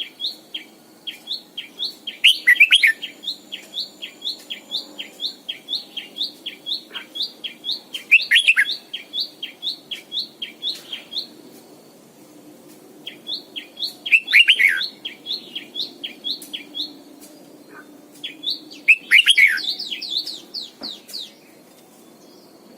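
Red-whiskered bulbul calling: a fast run of short downward-sliding chirps, about three a second, broken roughly every six seconds by a louder, fuller song phrase. The chirping pauses briefly about halfway through and stops near the end.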